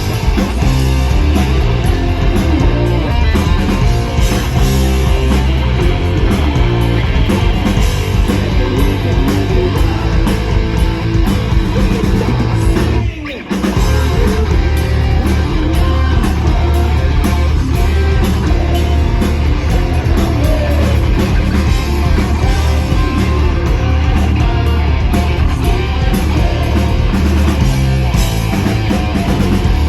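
Hard rock band playing an instrumental passage: electric guitars, bass and drum kit. The music breaks off for a moment about halfway through, then comes back in.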